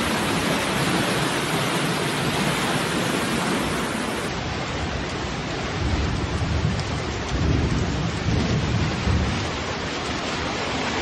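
Floodwater rushing through a street as a fast, muddy torrent: a steady, loud rush of water with heavier low rumbling surges in the second half.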